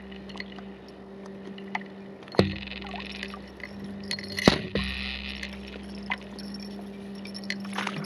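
Small homemade remote-control fishing boat under way on the sea: its motor hums steadily while the hull knocks sharply on the swell twice, about two and a half and four and a half seconds in. Water splashes and sloshes against it after each knock.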